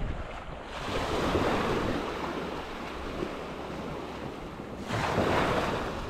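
Gulf of Mexico surf breaking and washing up a sandy beach, swelling about a second in and again near the end, with wind on the microphone.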